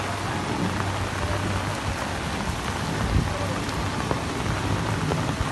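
Rain falling steadily onto a flooded street.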